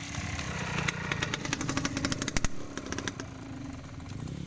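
Dirt bike engine running close by as the trail motorcycle rides past through mud. A rapid run of sharp clicks and knocks comes over it from about a second in, with the loudest near the middle.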